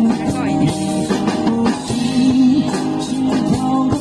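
Live pop song from a street duo: a man singing in Mandarin over acoustic guitar, with a drum kit keeping a steady beat.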